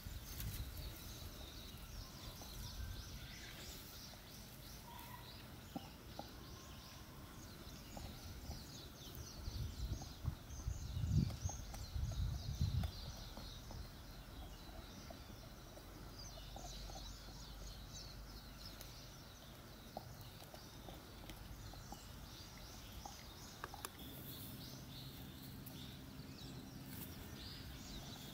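Golden retriever puppy gnawing on a dog bone on grass: scattered small chewing clicks, with a louder stretch of low thumps and scuffling about ten seconds in. Birds chirp steadily in the background, and a steady low hum comes in near the end.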